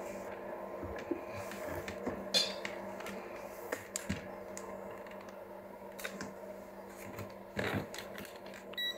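Scattered faint clicks and handling knocks on a laptop repair bench over a steady low electrical hum. Right at the end a digital multimeter starts beeping with a short pulsing electronic tone.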